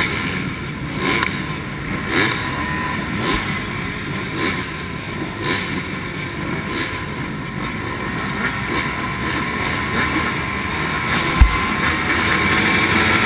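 A line of motocross bikes running at the start gate, throttles blipped about once a second, with the revs and level building toward the end as the riders wait for the gate to drop. One sharp thump comes near the end.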